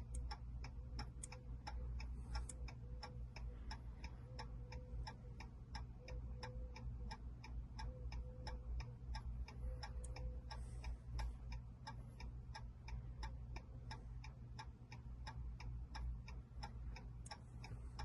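2020 Jeep Cherokee's hazard-light flasher ticking steadily, about three ticks a second, with the ignition off and the hazards on during key programming.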